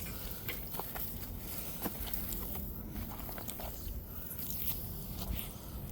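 Scattered small crunches and scrapes over a low rumble, the sound of movement and handling while a fish is being landed on a bank.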